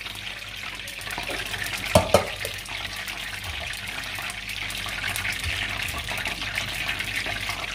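Steady background hiss, with two sharp knocks about two seconds in from a spoon and a small spice dish being handled over the glass mixing bowl, and a few fainter ticks later.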